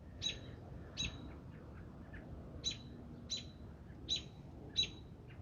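A small bird chirping: about six short, high chirps at uneven gaps.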